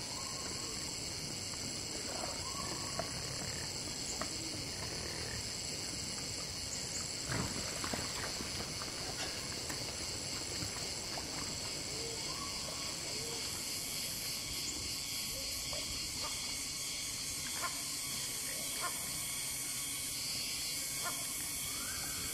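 Tropical forest ambience: a steady high-pitched insect chorus, with scattered short calls and a few sharp clicks, the loudest about seven seconds in.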